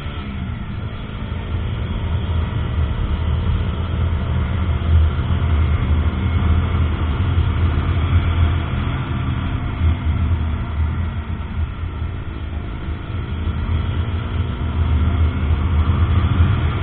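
KTM Duke 125's single-cylinder four-stroke engine running under way, heard from the rider with a steady rush of wind over the microphone. The engine note rises and falls a little, and everything gets louder about two seconds in.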